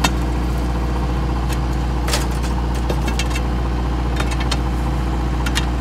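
Small excavator's diesel engine idling steadily, with a few sharp knocks scattered through as a hoe digs around the crawler track.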